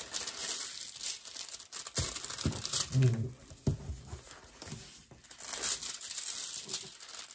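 Plastic packaging of a diamond painting kit crinkling and rustling irregularly as it is handled and opened.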